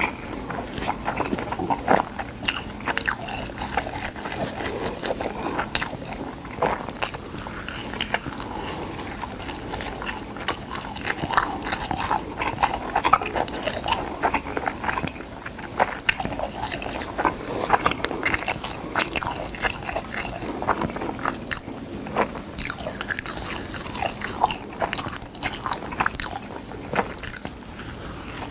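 Close-miked chewing of dry gamtae seaweed sheets: a dense, irregular crunching and crackling of crisp bites and mastication that goes on without a break.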